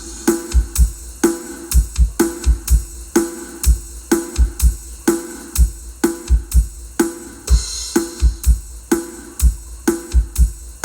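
Music with a steady drum-kit beat: deep kick-drum thumps and sharp snare hits, repeating evenly.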